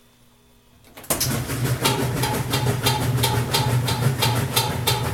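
A Roper washing machine starting up about a second in: a steady low motor hum with a rapid, regular knocking, about three knocks a second. The knocking is the washer's fault, its source unknown to the owner.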